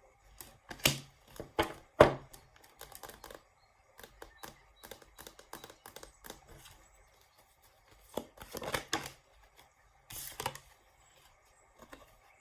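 Tarot cards being handled on a table: a run of light clicks and taps, with louder snaps about one and two seconds in and again near eight and ten seconds.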